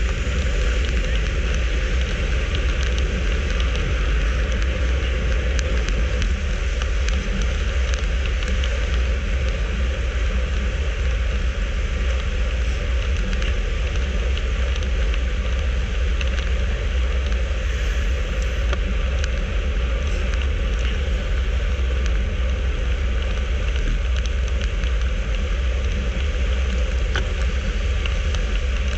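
Steady wind rush and buffeting on a handlebar-mounted camera microphone with road-bike tyre hum on asphalt, riding at about 38 km/h. A deep, even rumble with no breaks.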